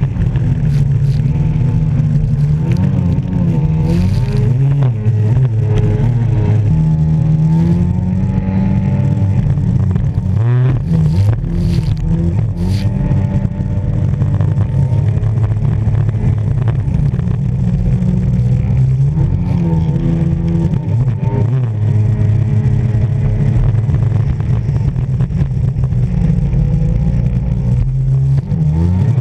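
Jet ski engine running hard, heard close from the craft itself, its pitch rising and falling again and again with throttle and turns. Water rushing and spray run under it, with a few sharp splashes about ten to thirteen seconds in.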